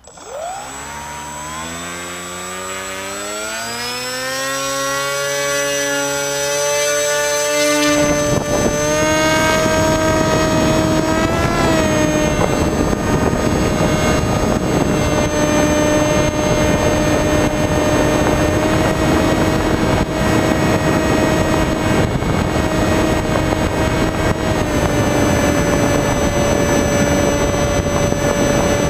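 Skywalker FPV model plane's electric motor and propeller spinning up from standstill, a whine that climbs in pitch over about eight seconds. About eight seconds in, loud wind rush over the onboard microphone sets in as the plane takes to the air, and the motor then runs at a nearly steady pitch, with a brief wobble near twelve seconds.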